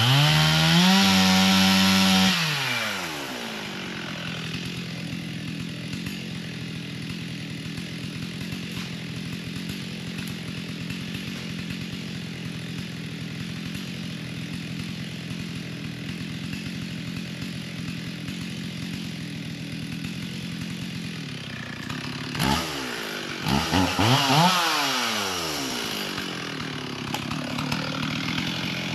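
Chainsaw revved to full throttle for about two seconds, then falling back to a steady idle. A little over twenty seconds in it is blipped and revved up and down again, then settles back to idle.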